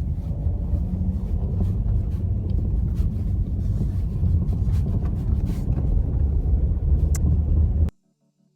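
Opel Astra J driving over rough road, heard from inside the cabin: steady tyre and road rumble with scattered clatter and knocks from the front suspension on small bumps, which the owner traces to play in the stock front shock absorbers rather than the brake calipers. The sound cuts off abruptly near the end.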